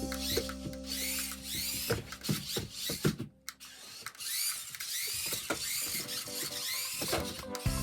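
Electric motors and plastic gearbox of a remote-control toy truck whirring in short bursts, each whine sweeping up and back down in pitch, with clicks and a brief pause a little past the middle.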